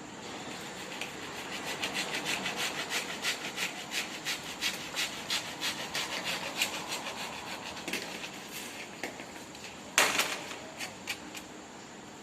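Hand sawing: a long run of quick back-and-forth saw strokes, about three a second, which slows and fades near the end. About ten seconds in comes one sharp, loud knock, followed by a few lighter clicks.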